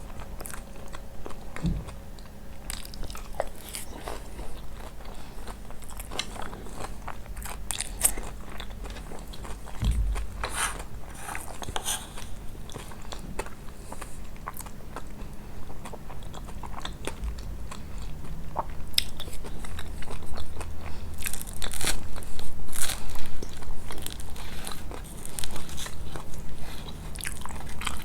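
Close-miked eating of kunafa: irregular crisp crunches and wet chewing as the toasted shredded pastry is bitten and chewed, denser and louder in the second half.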